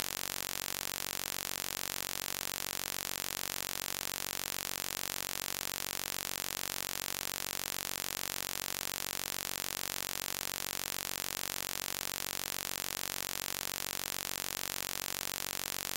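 Steady, unchanging electronic buzz with dense even overtones and a faint rapid flutter, like a short sound looped over and over. It is not a natural sound.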